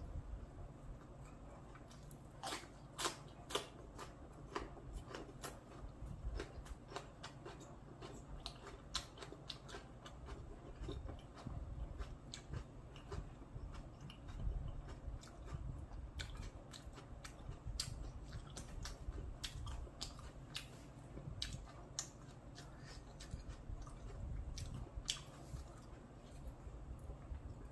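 A person biting and chewing crispy fried spring rolls: irregular sharp crunches, coming in bunches with short pauses between.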